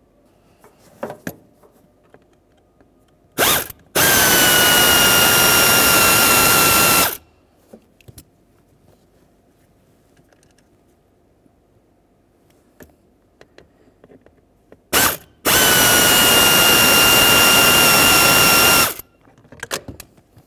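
A cordless power driver with a Phillips bit backs out two small mounting screws: two runs of about three seconds each, some eight seconds apart. Each run opens with a brief blip, and the motor's pitch drops a little as it starts, then holds steady.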